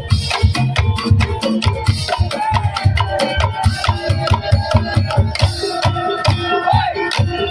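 Tongtek percussion ensemble playing a fast, steady rhythm: rapid bamboo kentongan and wood-block strikes over deep drum beats, with a melody line on top.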